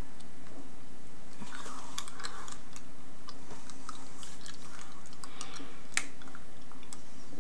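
Crunching and clicking of candy being chewed close to the microphone, with one sharper click about six seconds in, over a steady low hum.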